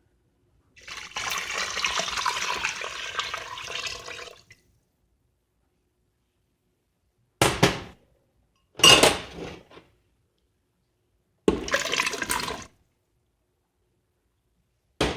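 Vegetable stock poured into a pressure cooker's inner pot, a continuous splashing pour lasting about four seconds, followed by three short, louder splashes a few seconds apart.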